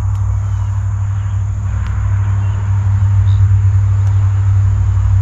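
Insects trilling steadily, a high thin buzz, over a loud steady low hum.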